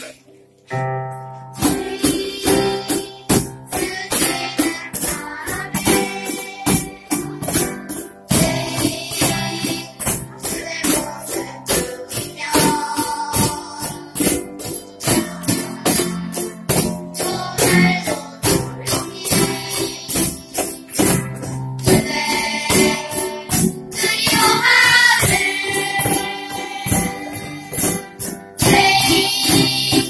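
Live children's ensemble song: a group of children singing together with keyboard and small guitars, over a steady beat from cajons and jingling hand percussion, starting about a second and a half in. Recorded through a phone's built-in microphone (Xiaomi Redmi 4 Pro).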